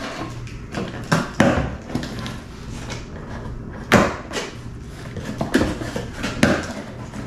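Knocks and scraping as a cardboard box is worked open inside a wooden crate. There are about five sharp knocks, the loudest about four seconds in.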